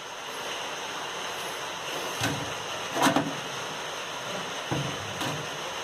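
Sanyo washing machine running with a steady hiss, and a few dull knocks a couple of seconds in, at about three seconds, and near the end.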